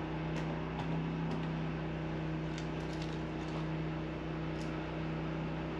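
Steady low machine hum with a faint, even tone, and a few faint clicks.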